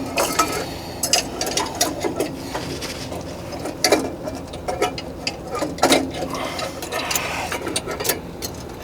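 Hand tools and metal burner parts clicking and clinking in irregular bursts as the burner assembly of an oil-fired heater is reinstalled, with a couple of louder metal knocks about four and six seconds in.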